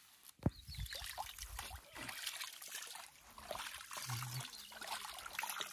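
Water trickling and splashing lightly as cupped hands scoop it from a small muddy irrigation ditch, in an uneven patter, with a single sharp knock about half a second in.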